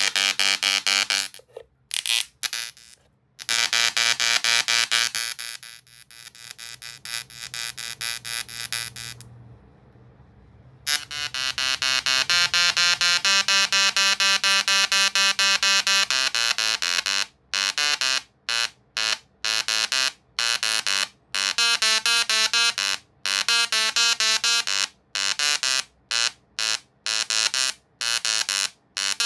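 Tesla coil discharge buzzing loudly with a harsh pitched tone that shifts in pitch. It drops out briefly near the middle, and in the second half it fires in short bursts, roughly two a second.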